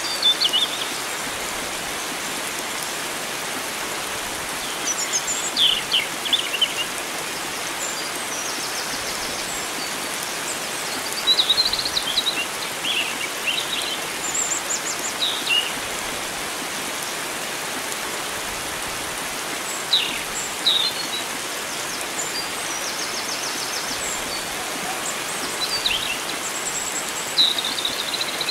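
Wild songbirds calling in short, high chirping phrases every few seconds over the steady rush of flowing water.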